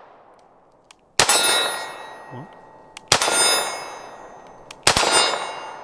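Three 9mm shots from a Smith & Wesson SD9 2.0 pistol, about two seconds apart. Each is followed at once by the clang of a steel target ringing out from a hit.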